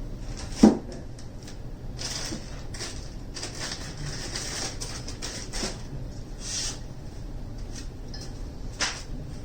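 Metal network switch and its mounting hardware being handled: a sharp knock about a second in, light clicks and rustles throughout, and another knock near the end, over a steady low hum.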